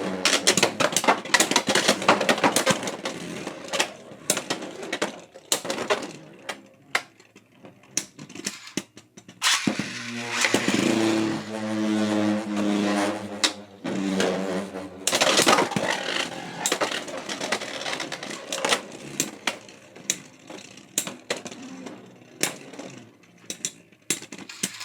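Beyblade X spinning tops, Pegasus Blast and Silver Wolf, battling in a plastic stadium: a whirring spin broken by many sharp clacks as they hit each other and the stadium walls, over several rounds with short pauses between them.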